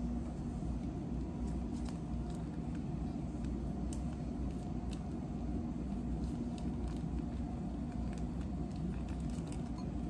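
A steady low hum of background machine noise, with a few faint crinkles and clicks as a plastic dressing packet is squeezed out over a salad.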